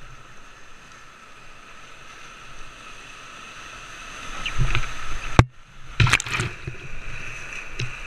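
Whitewater rapids rushing around a canoe. About halfway through, water hits the boat in heavy splashes with a sharp knock, the sound drops out briefly, and then more splashes hit.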